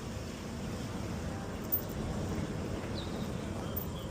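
Steady low outdoor background noise with a faint short tap a little under two seconds in.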